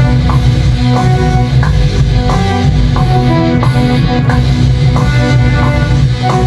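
Rock demo track playing: electric guitar over bass and drum kit with a steady beat.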